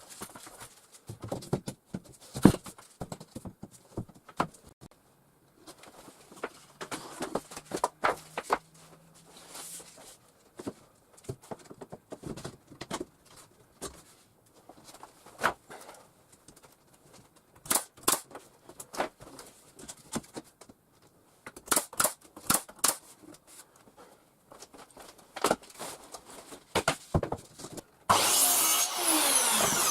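Scattered knocks and clicks of hand work on wooden boards, then a power tool runs for about two seconds near the end, its pitch falling.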